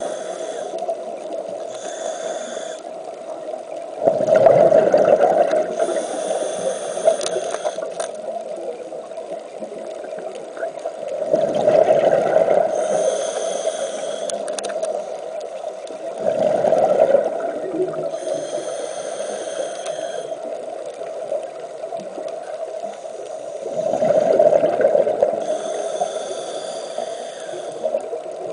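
Scuba regulator breathing heard underwater: a thin, high hiss on each inhale, then a rush of gurgling exhaled bubbles, repeating about every six to seven seconds over a steady hum.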